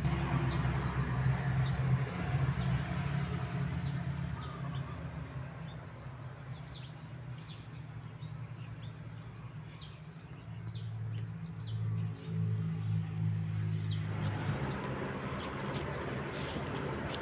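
Small birds chirping with many short, quick calls over a steady low engine hum that drops slightly in pitch about ten seconds in.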